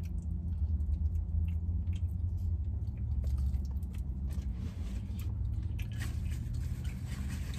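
A person chewing and biting into Popeyes fried chicken, with scattered small crunches and clicks over a steady low hum.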